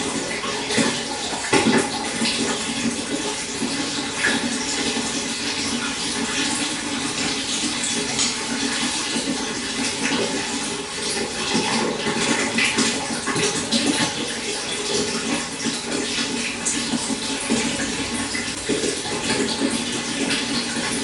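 Small stream running over stones, a steady rush of flowing water with continual small splashes and gurgles.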